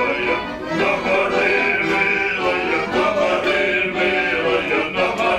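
A man singing a Ukrainian folk song live, with accordion accompaniment.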